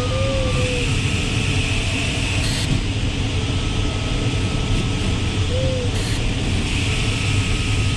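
Steady rush of airflow in a glider's cockpit in flight, with thin electronic tones from the audio variometer starting and stopping: a higher tone held for a second or two several times, and a lower warbling tone twice, briefly.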